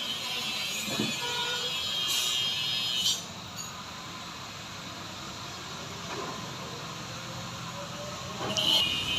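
Water jet spraying onto a refrigerator evaporator coil, a hiss that cuts off suddenly about three seconds in and starts again near the end.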